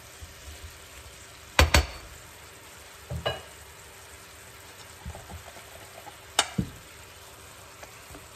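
Apple slices sizzling in a frying pan over medium heat while a spatula stirs them. Sharp knocks come as a quick pair about one and a half seconds in, with a smaller one after three seconds and another sharp one after six seconds.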